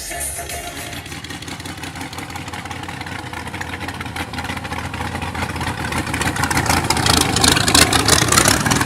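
A vehicle's engine running, with a steady rush of noise that grows louder over the last few seconds.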